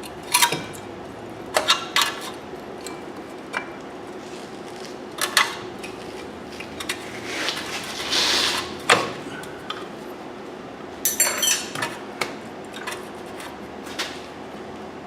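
Scattered metallic clinks and clanks of hand tools and brake parts being handled as the brake caliper is refitted over the rotor, with a short hiss about eight seconds in and a quick rattle around eleven seconds.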